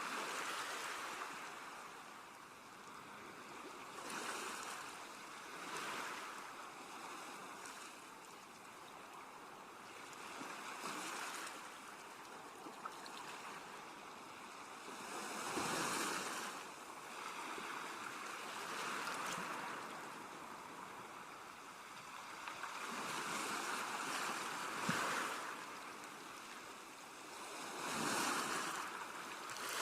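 Sea waves breaking and washing on a shore, swelling and falling back every few seconds, with stronger surges about halfway through and near the end.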